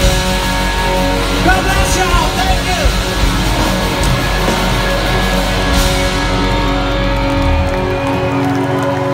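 Rock band playing live through a concert PA: electric guitar, drums and bass, with a voice singing or shouting over it about two seconds in. Near the end the drums and bass drop out, leaving held guitar notes ringing as the song closes.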